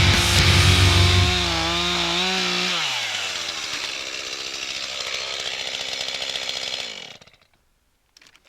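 Two-stroke chainsaw running at high revs, then dropping in pitch as the revs fall about three seconds in, and running on at lower speed until the sound cuts off suddenly near the end.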